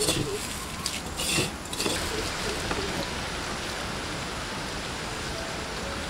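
A hand squeezing and mixing moist grated coconut in a clay bowl gives a few short crackling rustles, then a steady even hiss for the rest.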